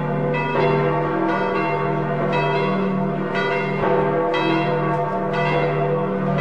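Church bells ringing in a slow peal, a new stroke about once a second over the lingering ring of the earlier ones.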